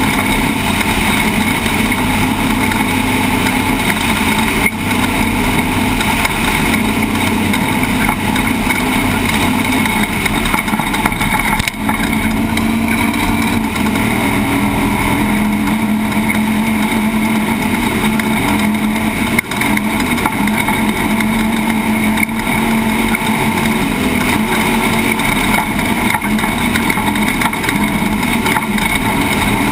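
Off-road race truck's engine running hard at a steady pace, its pitch wavering slightly, under a continuous haze of driving noise.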